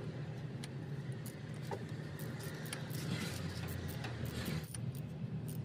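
Socket ratchet snugging up the differential fill plug, giving scattered light clicks, over a faint steady low hum.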